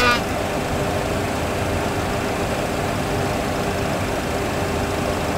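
Steady rumble and rushing air noise in a Boeing 737 full flight simulator cockpit: the simulator's sound system playing engine and slipstream noise in flight, with a faint steady hum.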